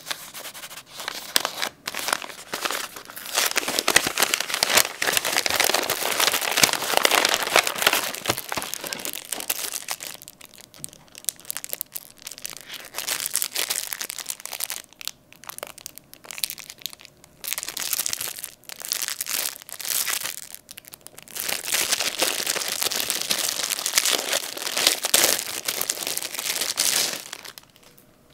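Kraft wrapping paper being unfolded and crumpled, then a clear plastic bag crinkling as it is handled and pulled off. The crackling comes in two long heavy stretches with patchier handling between them, and stops just before the end.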